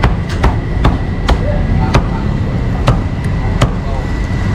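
A meat cleaver chopping meat on a chopping block: about eight sharp strikes at an uneven pace, stopping a little before the end, over a steady low rumble of street noise.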